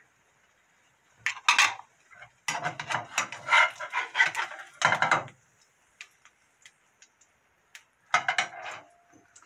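Kitchen utensils scraping and clattering: a plastic spatula scraping under a fried egg in a nonstick frying pan to lift it out, along with a spoon on a ceramic plate. Three bouts of scraping and clinking, the longest lasting about three seconds.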